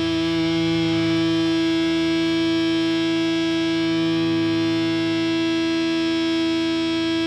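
Distorted electric guitar held in a steady, ringing drone of sustained tones, with no drum beat, played live through a loud amplifier.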